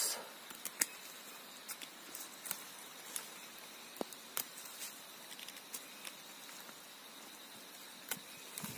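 Light drizzle: scattered, irregular sharp ticks of raindrops over a faint steady hiss.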